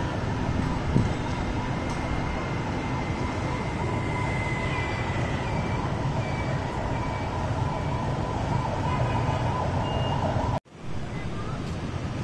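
Busy street traffic: steady engine and road noise, with short high beeps of vehicle horns repeating from about halfway. The sound cuts out abruptly near the end, then the traffic noise resumes.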